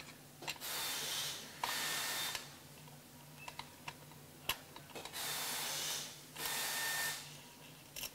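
An 8 mm T-handle wrench turning a radiator mounting bolt on a motorcycle frame: four short bursts of scratchy, ratchet-like noise in two pairs, with a few light metal clicks between them.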